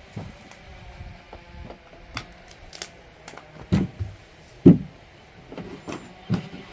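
Freshly sawn wooden boards knocking and clunking as they are handled, in a run of irregular knocks, the loudest two about four and five seconds in.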